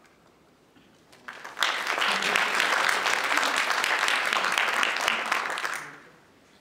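Audience applauding, starting about a second and a half in, lasting about four seconds and fading out near the end.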